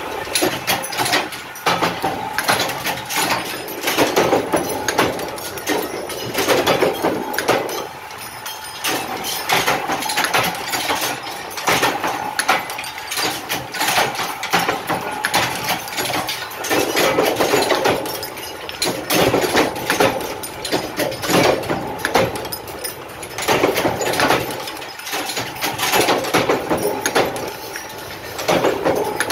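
Mechanical power press stamping flat steel blanks into small domed cups: repeated strikes of the ram roughly every two seconds over the steady running of the press, with metallic clatter throughout.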